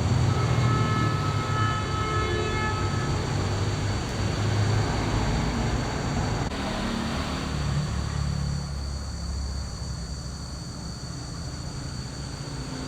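A motor vehicle engine running with a low rumble that eases off about eight seconds in; a steady high tone sounds over it for the first few seconds.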